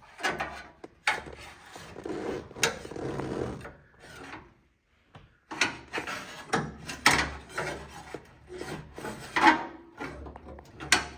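A long metal whale tail dent-repair rod scraping, rubbing and clicking against the inside of a car fender as it is worked into the panel. The rubbing comes in irregular strokes with sharp clicks, stopping briefly about four seconds in.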